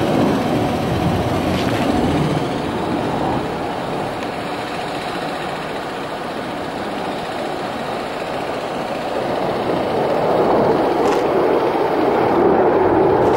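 Jet engine noise of a MiG fighter flying overhead: a steady rushing sound that eases off around the middle and swells again near the end.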